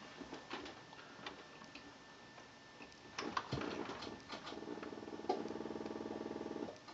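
APC Smart-UPS 1500 VA clicking irregularly, then buzzing with a fast pulsing hum from about four and a half seconds in, which grows louder and then cuts off suddenly near the end. This is the UPS reacting to the sagging, unregulated output voltage of the inverter feeding it.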